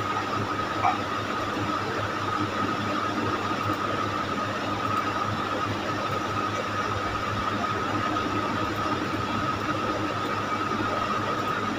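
Steady background noise with no speech: an even hiss carrying a constant high whine and a low hum.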